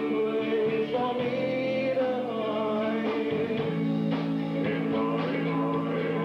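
Rock band playing live, with guitar and a singer. The recording is muffled, with no high end.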